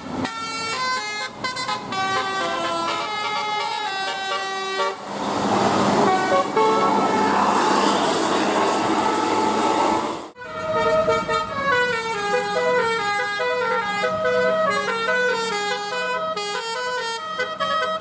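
Telolet bus horns: multi-tone air horns on a bus playing a stepping melody of notes. From about five to ten seconds a loud rushing noise drowns them out, then it cuts off sharply and the horn melody starts again.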